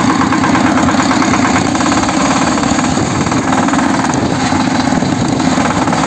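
Kirloskar MegaT 15 power tiller's single-cylinder diesel engine running steadily as the tiller is driven along in high gear.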